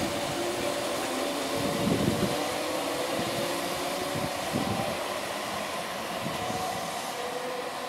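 Merseyrail PEP-type electric multiple unit pulling away: a steady electric whine from its traction equipment over running noise, with a couple of low thumps from the wheels on the track. It grows slightly fainter near the end as the train draws away.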